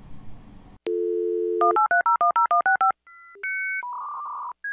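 A telephone sound effect: a dial tone for about a second, then about ten rapid touch-tone (DTMF) digits dialed in quick succession, followed by a run of differently pitched electronic beeps and a buzzing tone.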